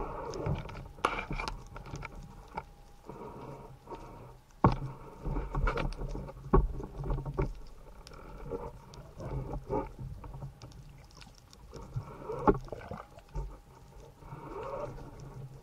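Underwater sound picked up by a camera in its waterproof housing: scattered sharp clicks and knocks over a low hum that comes and goes, with short gurgles.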